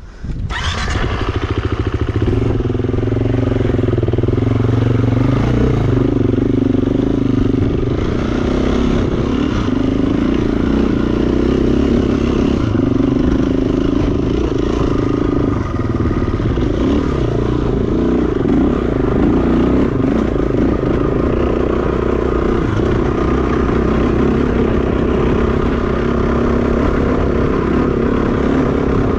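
Enduro dirt bike engine running steadily under way, its pitch wavering a little as the throttle is worked.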